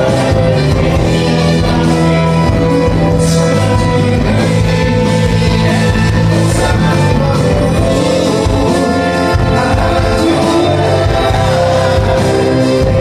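Live band playing a song with singing, guitar and bass, loud and steady.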